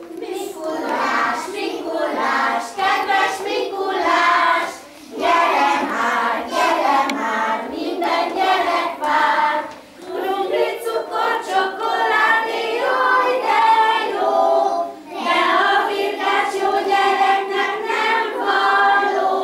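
A group of young children singing a song together, in phrases broken by short pauses about every five seconds.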